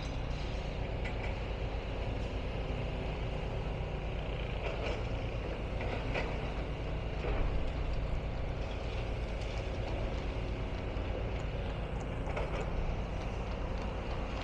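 Heavy diesel engine running steadily with an even low rumble, with a few faint knocks over it.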